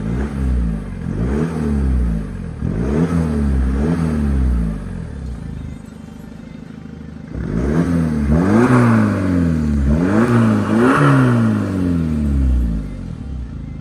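Volkswagen Golf Mk6's engine revved repeatedly while standing still: a run of quick blips, a short settle back to idle about halfway, then several harder revs before it drops back to idle near the end.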